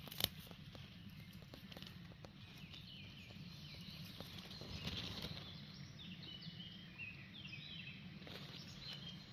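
Faint outdoor woodland ambience with small birds calling in short, high chirps from about three seconds in, over a steady low background rumble. There is one sharp click just after the start.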